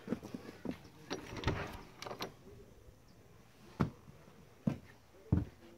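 A wooden door being handled, with a cluster of knocks and clunks, then three single thumps of footsteps on a wooden floor, spaced roughly a second apart.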